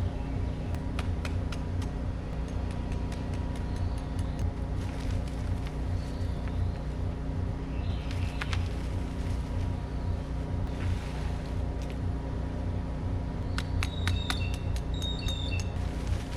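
Bobcat skid steer engine running steadily, with scattered sharp metal clanks and, near the end, a cluster of clanks and short high squeaks.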